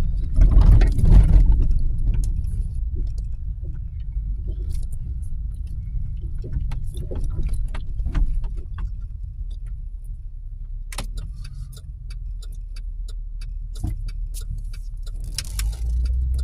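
Car cabin noise while driving: a steady low rumble of engine and tyres, with scattered light clicks and jingles. The rumble grows louder near the end as the car speeds up.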